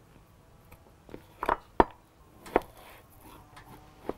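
Chef's knife cutting cooked butternut squash into cubes on a wooden cutting board: about five sharp, unevenly spaced knocks of the blade meeting the board.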